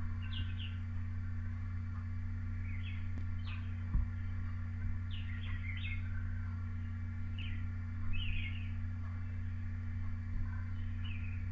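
Small birds chirping, a few short chirps every second or two, over a steady low hum, with a single knock about four seconds in.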